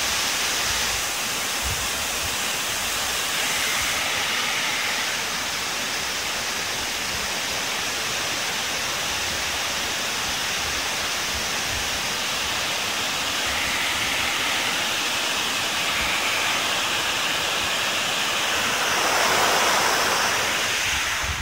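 Water pouring over a river weir: a steady rush of whitewater that swells a little near the end.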